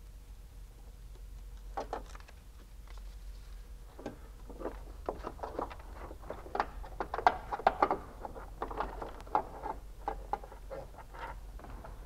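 Hands working an HID ballast and its wiring into place in a car's engine bay: a run of light clicks, taps and rustles of plastic and wire, starting about two seconds in and busiest in the middle, over a faint low hum.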